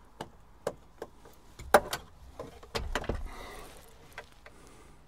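Scattered light clicks and taps of a screw being worked into the plastic gauge cluster behind the steering wheel, with a sharp click about two seconds in and a dull thump a second later.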